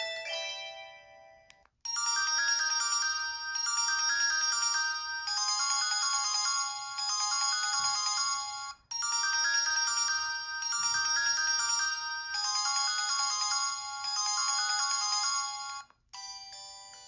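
Sanyo Vero cell phone playing one of its built-in ringtones: a synthesized melody with a quick repeating figure, heard through twice with a brief break between. The previous ringtone fades out at the start, and the next one begins near the end.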